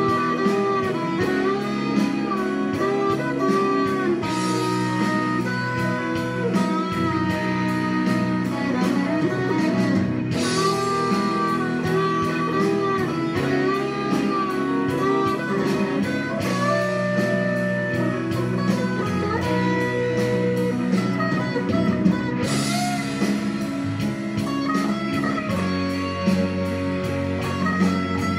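Stratocaster-style electric guitar playing a melodic lead with string bends over a backing track of sustained chords.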